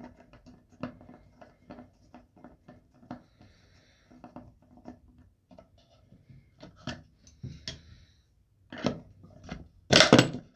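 Screwdriver working screws out of an air rifle's polymer buttstock: a run of small clicks, ticks and scrapes of tool and parts being handled, with two louder knocks near the end.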